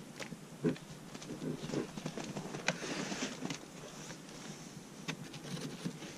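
Scattered light knocks, scrapes and rustles of a foam beehive roof being handled and set back on the hive, with shuffling steps on snowy ground.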